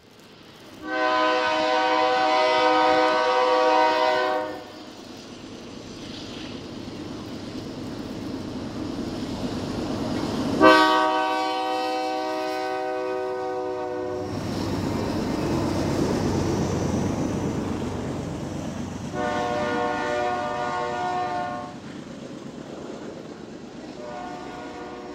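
Diesel freight locomotive's multi-chime air horn sounding a long blast, a second long blast, a shorter one, and a fourth starting near the end: the grade-crossing signal. Between the blasts the locomotive's engine rumble grows louder as the train approaches.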